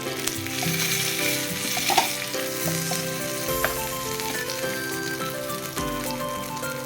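Chicken pieces sizzling as they fry on a tawa, a flat griddle. There is a steady hiss, with one sharp click about two seconds in.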